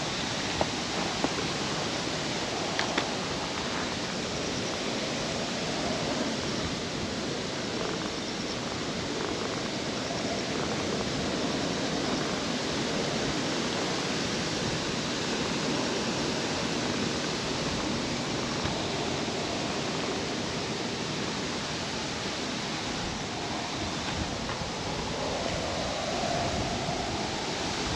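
Steady outdoor background noise, an even hiss with no distinct source, with a few light clicks in the first three seconds.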